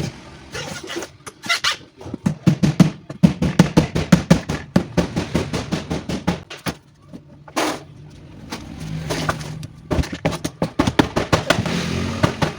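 Rapid runs of sharp knocks and clatter, several a second, as parts of an old Toshiba Glacio two-door refrigerator are worked loose while it is broken down for scrap. There is a short pause in the middle.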